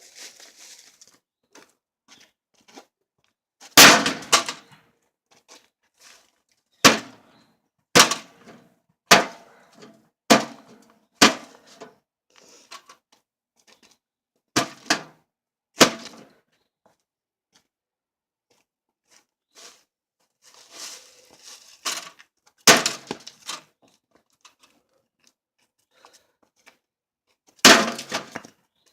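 Heavy blows repeatedly striking an old microwave oven, smashing its metal and plastic casing: about ten loud, sharp impacts at irregular intervals, each with a brief ringing rattle, and smaller knocks and clatter between them.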